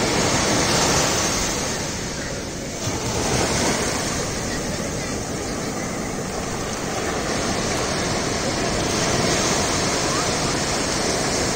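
Sea surf breaking and washing up over a sandy beach: a steady rush of waves and foam.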